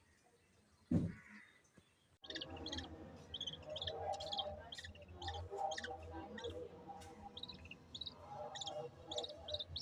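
A single thump about a second in, then budgerigars chirping and chattering continuously from about two seconds in, many short high chirps over a busy warble.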